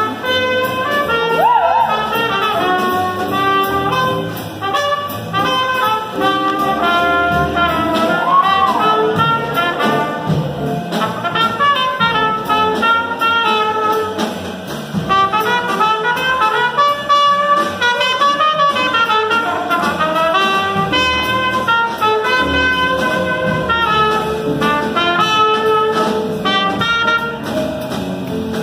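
Live jazz band: a trumpet plays the lead line, with a few bent, wavering notes, over upright bass, drums and keyboard.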